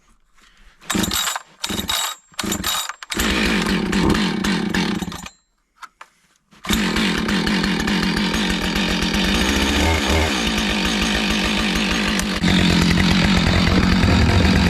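Husqvarna professional two-stroke chainsaw being pull-started after sitting unused: a few short sputters on the first pulls and a brief run that dies. It then catches and runs steadily, getting louder about twelve seconds in.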